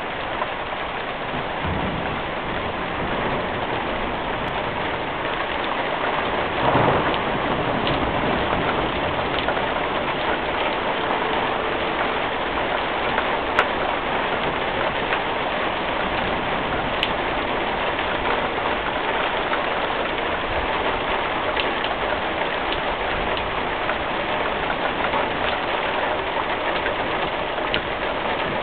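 Steady rain falling at the end of a thunderstorm, an even hiss with scattered drop hits. A brief louder swell comes about seven seconds in.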